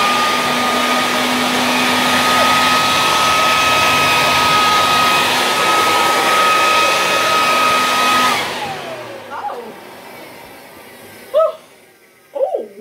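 Electric leaf blower running flat out: a loud rush of air over a steady high motor whine. About eight seconds in it is switched off and winds down with a falling whine.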